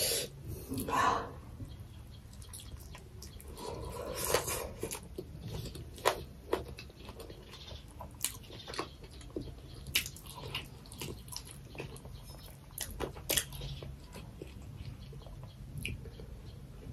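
A person chewing and biting a large steamed chicken momo, close to the microphone: irregular wet mouth clicks and smacks, with a couple of longer soft noises near the start and about four seconds in.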